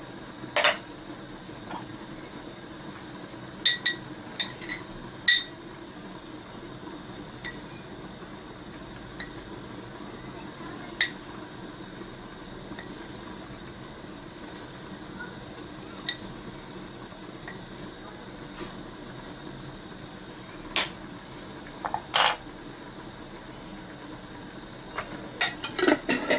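A metal spoon clinks and taps now and then against a pot or spice container as spoonfuls of ground cumin are measured out. The taps come in small groups, with a cluster near the end. A steady low hum runs underneath.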